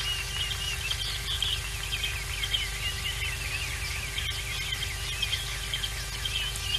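Many birds chirping and calling over one another in a busy morning chorus, short rapid notes and warbling phrases overlapping without pause. A steady low electrical hum and rumble from the outdoor webcam's microphone sits underneath, with one faint click about four seconds in.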